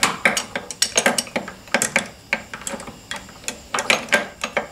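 Steel gears and shafts of an opened manual transmission clinking and rattling against each other as a shaft is lifted and worked loose by hand: a run of irregular sharp metallic clicks that stops near the end.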